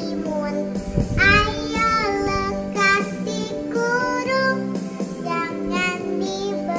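A young girl singing an Indonesian children's song over instrumental backing music, her voice wavering on the held notes.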